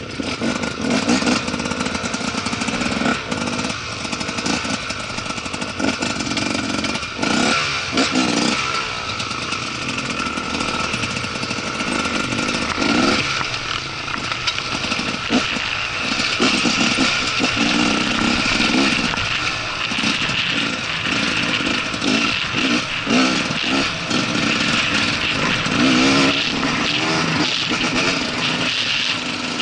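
Dirt bike engine running while riding over rough ground, the engine note surging and dropping again and again as the throttle is worked. Heard from a helmet-mounted camera on the rider.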